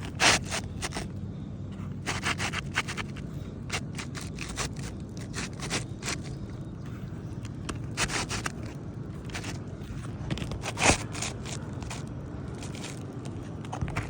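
Asphalt roofing shingles scraping and rustling in irregular strokes as a new shingle is slid and worked into place under the course above, with a few sharper, louder scrapes.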